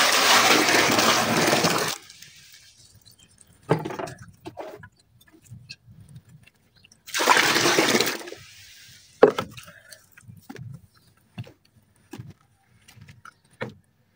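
Water poured in two splashy bursts of about two seconds each onto dry red dirt in a bucket, followed by scattered small cracks and knocks as the dirt takes in the water.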